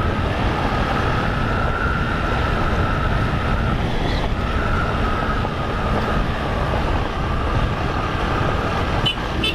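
Honda 160 single-cylinder motorcycle engine running at a steady cruise on a dirt road, mixed with tyre and road rumble. A steady tone sits above the engine's low drone.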